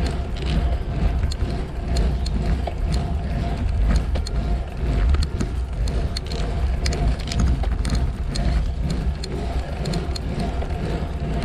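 Wind rumbling on a bicycle-mounted action camera's microphone while riding along a paved lane, with tyre-on-road noise and scattered short ticks and clicks.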